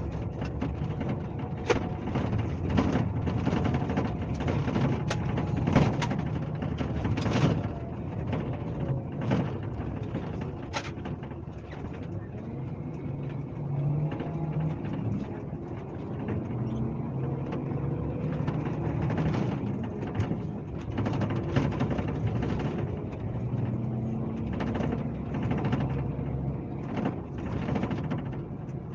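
Scania K370C coach's diesel engine running on the road, heard from on board, its note shifting up and down with speed. Frequent rattles and knocks come through over it.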